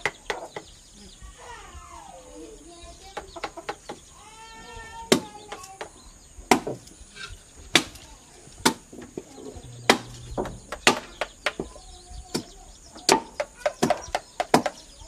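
Hammer driving a wood-carving chisel into wood: sharp knocks at irregular intervals, coming faster near the end. A chicken calls twice in the first five seconds.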